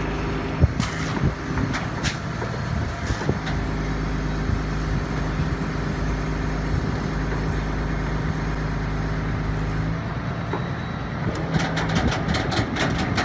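Boom truck's diesel engine running steadily to drive its hydraulic crane as the crane lowers a pallet, with a deeper hum from about three to ten seconds in. A few sharp knocks come in the first three seconds, and a quick run of clicks near the end.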